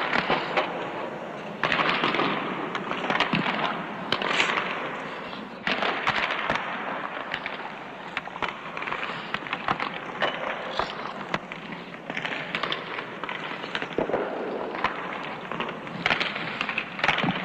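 Ice hockey shooting drill: sticks slapping pucks and pucks cracking off the boards, with sharp cracks coming at irregular intervals, sometimes several a second, over a steady noisy rink background.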